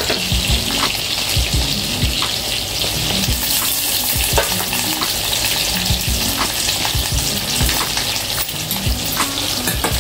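Tempering in hot oil: vadagam and curry leaves sizzling and crackling, a steady hiss with scattered pops.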